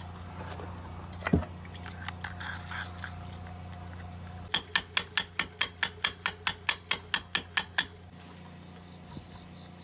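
Metal parts knocked once, then tapped sharply about fourteen times in quick, even succession (about four a second) for some three seconds while freeing a sticky exhaust valve from a small lawnmower engine, over a steady low hum.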